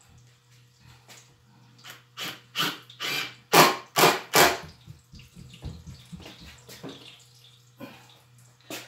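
Deck screws being started into a solid wooden board: about seven short, sharp knocks in quick succession from about two seconds in, then a few fainter ones near the end.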